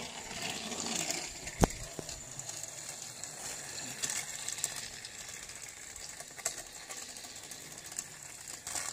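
Two battery-powered Trackmaster toy trains running steadily along plastic track, their small motors and wheels giving a mechanical rattle with scattered clicks, and one sharp click about a second and a half in.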